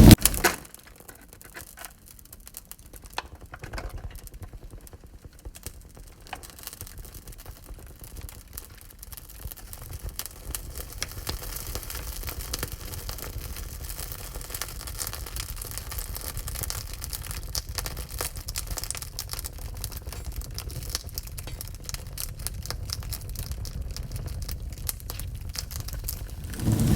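Wood fire crackling in a wood-burning stove: irregular small pops and snaps over a low steady rumble, sparse at first and busier from a few seconds in.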